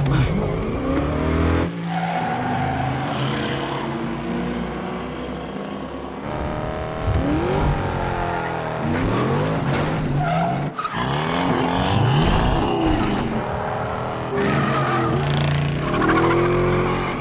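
Racing car engines revving hard, pitch climbing again and again through the gears and dropping back, with tyres squealing and skidding.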